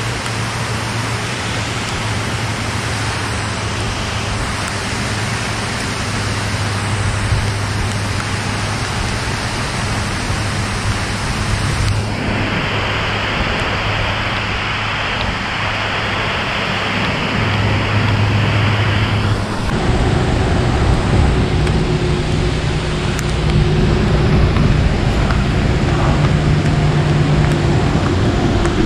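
Steady rain, a dense hiss, with a low steady hum underneath. The sound shifts abruptly about twelve seconds in and again near twenty seconds.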